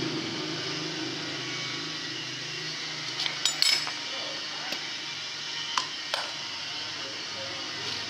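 Sharp metal clinks and taps of a steel valve spring compressor and valve spring against a diesel engine's cast-iron cylinder head while the tool is set on a valve spring: a quick cluster of clinks about three and a half seconds in, then single taps near five and six seconds.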